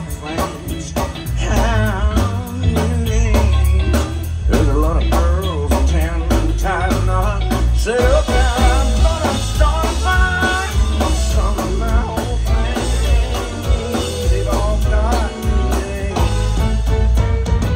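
Live country band playing, with fiddle, electric bass, acoustic guitar and drums.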